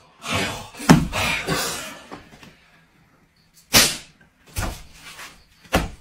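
Sharp whacks of a wooden stick striking a person's body, about three hard hits a second or two apart, with lighter knocks between.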